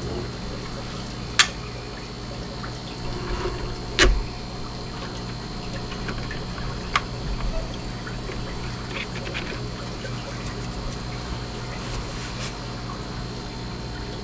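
Water splashing and trickling as coral pieces are handled in water, with a few sharp knocks of hard objects. The loudest knocks come about a second and a half and four seconds in, over a steady hum.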